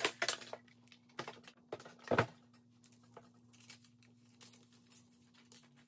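Plastic cutting plates and a thin metal die clacking and knocking as they are handled and separated, with paper rustling as cut pieces are lifted off the die. A few sharp clicks come at the start and the loudest knock about two seconds in.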